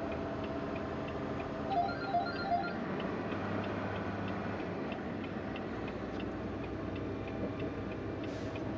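Semi-truck cab on the highway: the engine and road noise run steadily, with a light ticking about twice a second. A few short high pips sound about two seconds in.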